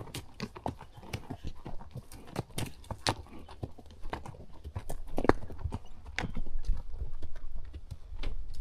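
Horse's hooves clip-clopping along a trail, an uneven run of sharp knocks. About five seconds in, a low rumble joins in and the sound gets louder.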